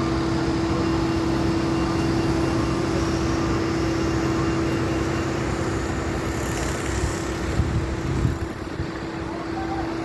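A steady mechanical drone with one constant humming tone. Its deeper part drops away about eight seconds in, around a few brief louder knocks.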